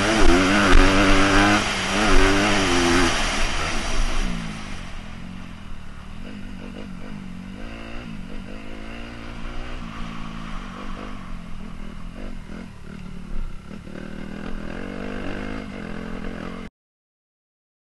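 Honda CRF250 dirt bike's single-cylinder four-stroke engine revving up and down hard for the first few seconds, then running more quietly at lower revs. The sound cuts off suddenly near the end.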